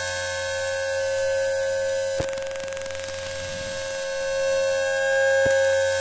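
Electrical hum and whine from electronic circuitry, recorded with a coil pickup: a steady cluster of tones, with a sharp click about two seconds in and another near the end.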